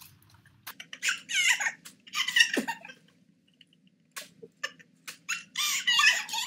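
Two young women shrieking with laughter in high squeals, in two bursts with a short lull between, with a few sharp hand claps.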